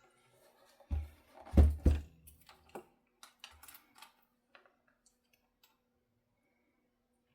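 Workbench handling noise: a few dull, heavy knocks about a second in, then a run of light clicks and taps that thins out after about four seconds, over a faint steady hum.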